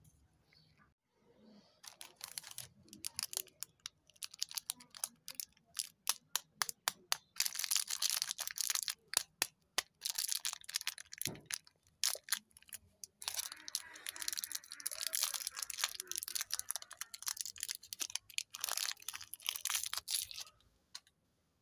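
Candy-bar wrapper crinkling and tearing as hands pull it open: dense, sharp crackles starting about two seconds in and stopping shortly before the end.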